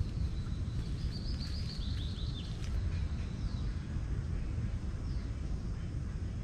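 Birds chirping over a steady low outdoor rumble, with a quick run of short, falling chirps from about one to two and a half seconds in and a few single downward calls later.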